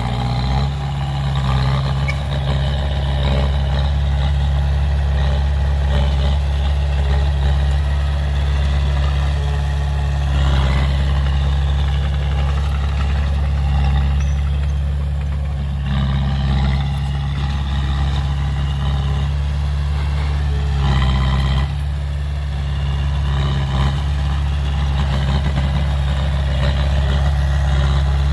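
Heavy construction-machine diesel engine running steadily, its pitch shifting slightly a few times.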